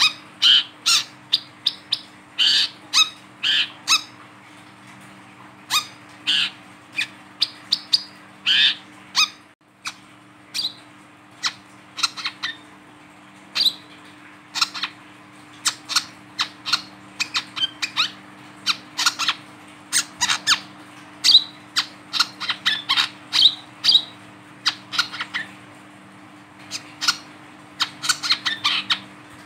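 Male brown-throated sunbird, held in the hand, calling: a long run of short, sharp chips at irregular spacing that come thicker and faster in the second half.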